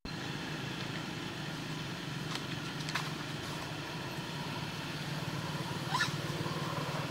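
Steady low hum of a running motor-vehicle engine, with a few faint chirps and a short rising squeak about six seconds in.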